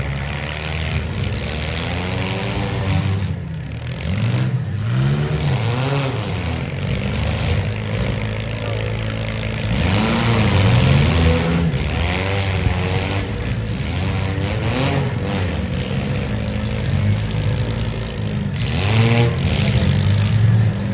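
Several compact-car engines revving and accelerating in a demolition derby heat. Their pitch rises and falls again and again as the cars throttle up and back off.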